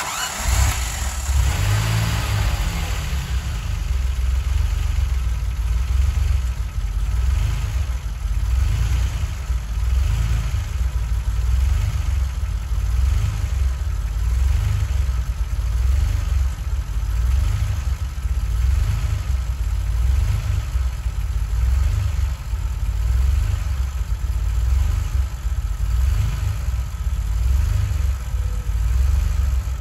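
DeLorean DMC-12's PRV V6 engine starting from cold: it fires up suddenly with a burst of noise for the first couple of seconds, then settles into a steady, low pulsing idle, and stops at the end.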